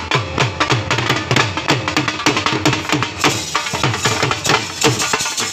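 Two dhol drums beaten with sticks in a fast, even jhumar dance rhythm, several strikes a second.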